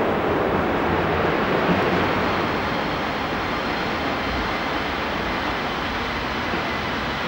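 DB class 110 electric locomotive running past, a steady rushing noise that eases slightly as it goes.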